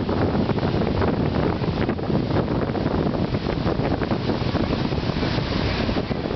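Ocean surf breaking and washing in over shallow water, with wind buffeting the microphone.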